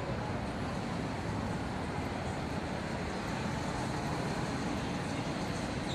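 Steady background din of city road traffic, an even hum with no distinct events.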